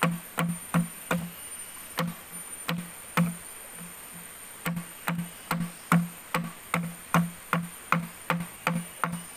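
A series of sharp hollow knocks at an uneven pace, about two to three a second, each with a short low tone, over a steady high-pitched hum.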